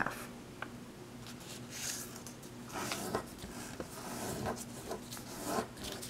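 A square of origami paper folded in half into a triangle, with fingers creasing it against a tabletop: a few soft rustles and swishes of paper sliding and being pressed.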